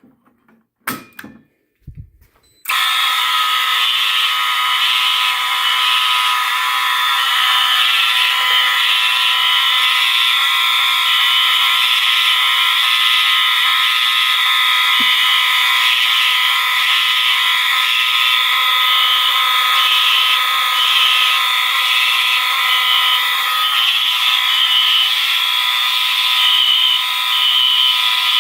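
A couple of sharp clicks as a fire alarm pull station is pulled. About three seconds in, several Siemens and Cerberus Pyrotronics fire alarm horns and sounders start at once and keep sounding together, loud and steady, with one layer pulsing in a repeating pattern.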